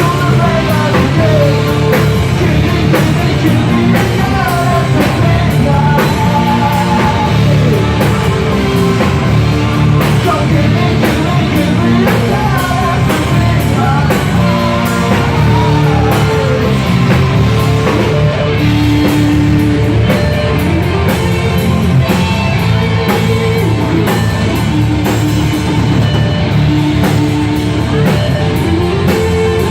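Live rock band playing a song with a sung lead vocal over guitar, bass and a drum kit, loud and continuous.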